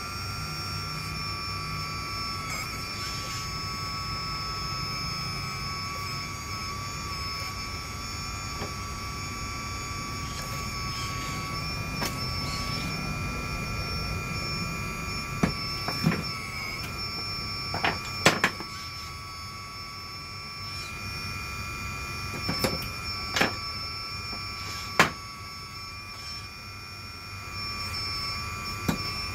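RC hydraulic excavator, a model CAT 336D, with its hydraulic pump running in a steady high whine as the boom and bucket move. Several sharp knocks come in the second half.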